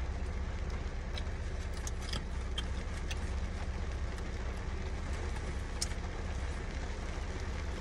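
Steady low hum and hiss of a car interior, with a few faint light clicks scattered through it.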